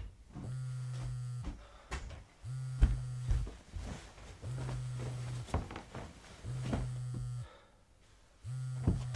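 A mobile phone on vibrate buzzing on a hard surface with an incoming call: five buzzes of about a second each, one every two seconds. A few light knocks fall between the buzzes.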